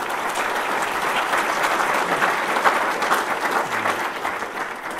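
Audience applauding: many hands clapping in a dense, steady wash that dies away near the end.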